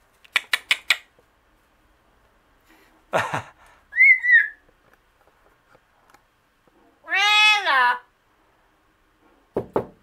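Double yellow-headed Amazon parrot calling: a quick run of four clicks at the start, a short wavering whistle about four seconds in, then a louder drawn-out call about a second long that rises and falls in pitch, a little like a meow.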